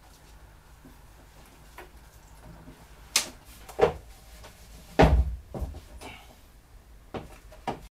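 Heavy metal column of an Optimum MB4 milling machine being handled and set down: a handful of knocks and clunks, the loudest a deep thud about five seconds in.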